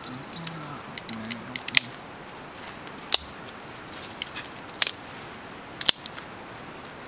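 Dry river-beach driftwood kindling catching in a newly lit campfire: a few sharp snaps and clicks about a second apart over a faint steady hiss.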